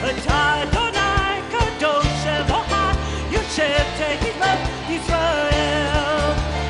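Live worship band playing a song, women singing the melody at microphones over a steady drum-kit beat, keyboard and electric guitar.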